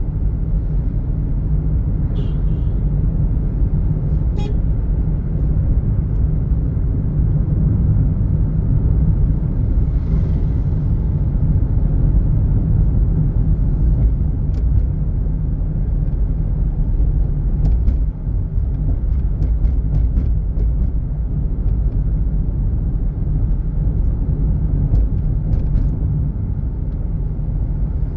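Steady low rumble of a moving vehicle: road and engine noise, with a few faint clicks.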